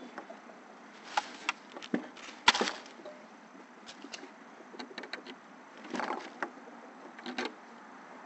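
Wooden fence board handled and fitted by hand: a series of knocks and taps of wood on wood, the loudest a sharp knock about two and a half seconds in, with more around six and seven seconds in.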